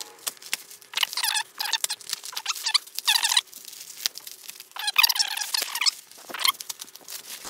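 Plastic wrap being slit with a knife and pulled off a foam-packed bundle: the stretched film crinkles and squeaks in repeated bursts of a second or less.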